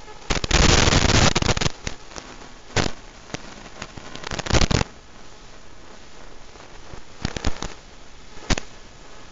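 Crackling bursts of static over a steady hiss, picked up in the audio of an analog FPV drone video link as the drone flies. A long burst comes about half a second in and lasts over a second, shorter ones come around three and four and a half seconds, and brief crackles come near seven and eight and a half seconds.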